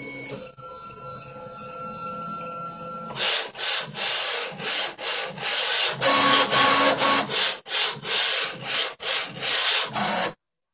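Stepper-driven axes of a homemade 3D printer under test. First comes a steady motor whine, then from about three seconds in a loud, rough rasping in repeated strokes with short breaks, as the bed and gantry shuttle back and forth on their rods. It cuts off suddenly near the end.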